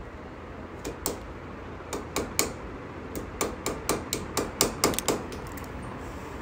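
A quick, uneven run of sharp tapping knocks, about twenty in all, starting about a second in and stopping shortly before the end: something being tapped in at the wall to fix a neon sign in place, like small pins or nails driven with a light hammer.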